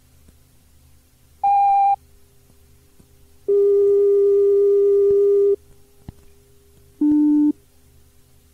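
Three steady electronic tones on an old announcement cassette tape: a short high beep, then a long lower tone of about two seconds, then a short, still lower beep. A faint tape hum runs between them.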